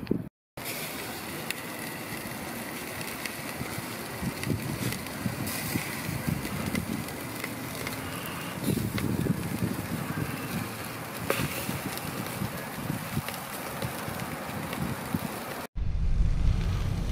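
Quail sizzling on a barbecue grill: a steady hiss with scattered crackles and pops of spitting fat. Near the end, after a cut, a low rumble of wind on the microphone.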